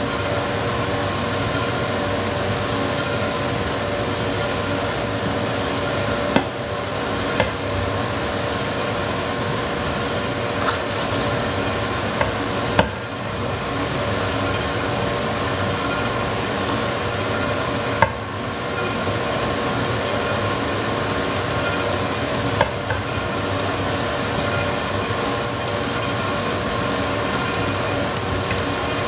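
Electric stand mixer running steadily on its lowest speed, its motor giving a constant hum while the beater works flour into a thick butter cake batter. A few sharp knocks break in, from a plastic scoop striking the steel bowls.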